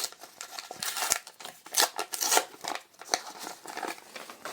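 A trading-card booster pack being opened: a series of short, sharp crinkling rustles and snips from the foil wrapper, about half a dozen in all.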